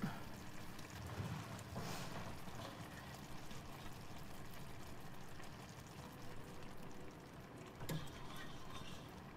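Faint simmering of risotto in a frying pan, with a ladle knocking sharply against the stockpot just before the end as stock is scooped out.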